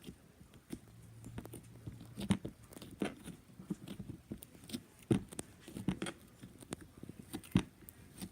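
Homemade slime being poked and squeezed by hand, giving a string of irregular small sticky clicks and crackles.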